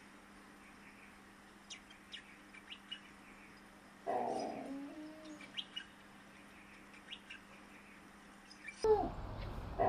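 Faint outdoor birdsong, short scattered chirps over a steady low background hum. A louder short animal call comes about four seconds in, and another near the end.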